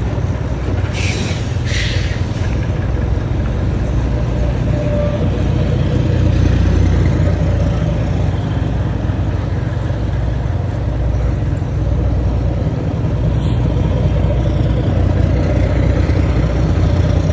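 Volvo FH trucks' diesel engines rumbling steadily through their aftermarket exhausts as the convoy gets moving, swelling a little now and then. Two short bursts of air hiss about one and two seconds in.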